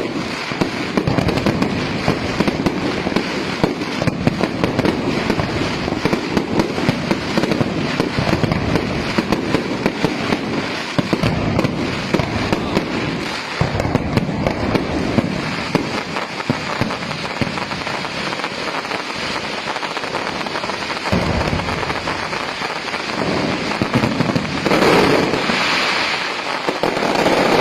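A fireworks display going off in a dense, continuous barrage of rapid bangs and crackling with no pause, swelling louder near the end.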